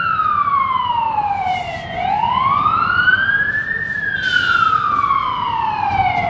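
Emergency vehicle siren on a slow wail. Its pitch slides down, climbs back up over about two seconds, then slides down again.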